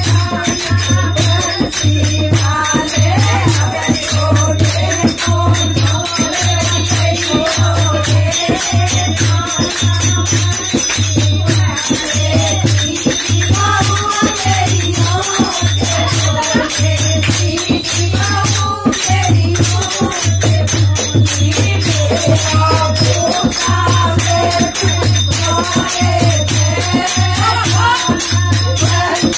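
Devotional kirtan music: singing voices over a steady low beat about once a second, with shaken, jingling percussion.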